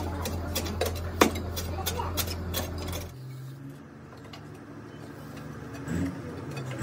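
Iron rammer rods packing moulding sand into a steel moulding flask for a cast-iron brake drum: repeated knocks and metallic clinks, several a second, over a steady low hum. About three seconds in, the hum stops and the knocks become fewer and fainter.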